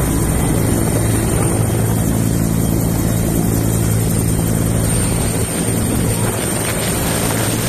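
Helicopter running: a loud, steady drone of engine and rotor.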